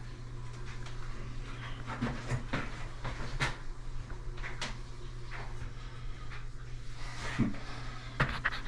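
Quiet room tone: a steady low hum with scattered faint clicks and taps.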